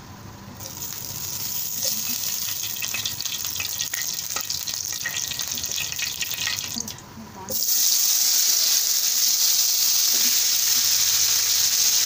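Cumin seeds sizzling and crackling in hot oil in a frying pan. About seven and a half seconds in, after a brief dip, the sizzle becomes a much louder, steadier hiss as boiled potato cubes fry in the oil.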